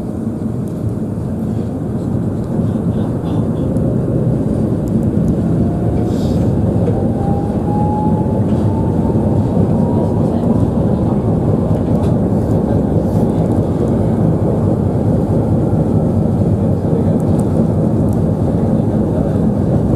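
A moving vehicle heard from inside: a steady low rumble of motor and road noise, with a faint whine that rises in pitch from about five to ten seconds in as it speeds up.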